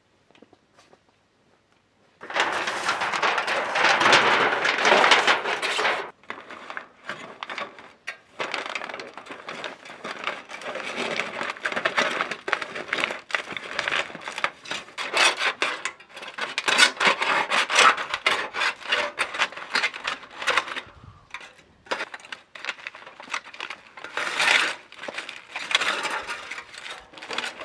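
Aluminium foil crinkling and rustling as it is spread and pressed down over a large round pizza tray, in irregular bursts starting about two seconds in, loudest in the first few seconds.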